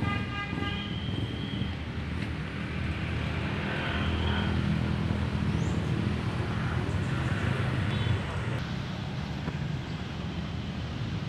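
Street traffic with a vehicle engine running steadily, and a short horn toot in the first second.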